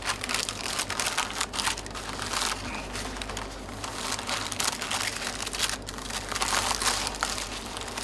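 Cooking paper crinkling and rustling as it is rolled by hand around a log of soft butter on a plastic cutting board. A continuous crackly rustle with many small crinkles.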